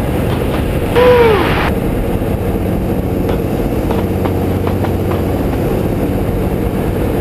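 Boeing Stearman biplane's radial engine running steadily under power through a loop. About a second in, a brief tone rises and falls over the engine drone.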